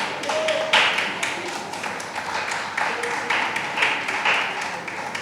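Audience applauding: dense, irregular hand claps that thin out and fade toward the end.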